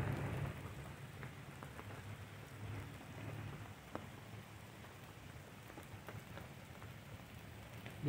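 Rain falling, a faint, steady hiss with scattered ticks of single drops.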